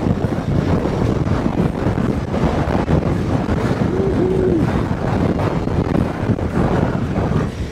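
Strong wind buffeting the microphone of a moving motorcycle: a loud, steady rushing noise, with the bike's engine and road noise underneath it.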